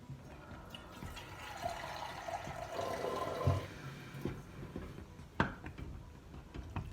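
Water poured from a glass into a pot of thick flour-and-molasses kuymak batter to thin it, running for about three seconds. A few light knocks and one sharp clink follow.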